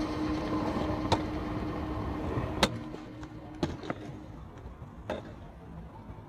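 Stunt scooter wheels rolling on stone paving, with a hum that fades out, and a few sharp clacks from the deck and wheels hitting the ground; the loudest is about two and a half seconds in.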